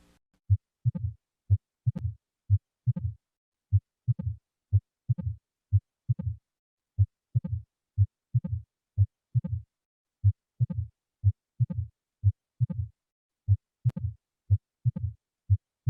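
Recorded heart sounds heard through a stethoscope: short low lub-dub pairs, about one a second, with clear silence between beats and slightly uneven spacing.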